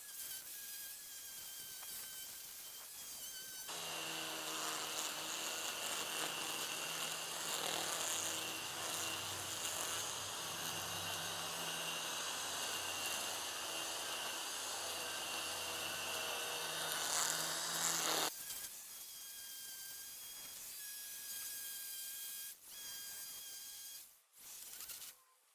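Ryobi 40V Expandit battery string trimmer running, its line cutting a bed edge through grass and soil. It is louder and fuller from about four seconds in until a few seconds before the end, then drops back.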